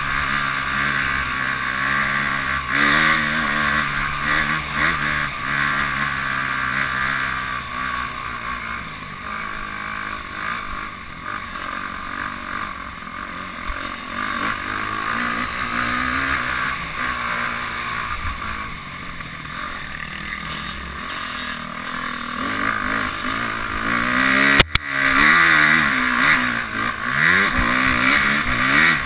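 Dirt bike engine running under load, its revs rising and falling repeatedly as it is ridden along a trail. A single sharp knock late on is the loudest moment.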